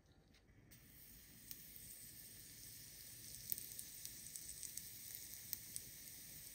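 Pancake batter sizzling in a hot, oiled cast-iron pancake skillet as it is poured: a quiet, steady hiss with scattered crackling pops, starting abruptly just under a second in.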